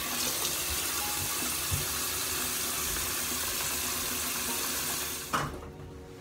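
Bathroom sink tap running in a steady hiss while a washcloth is rinsed under it to wash off a clay face mask. A little after five seconds a sharp knock is heard and the water stops as the tap is shut off.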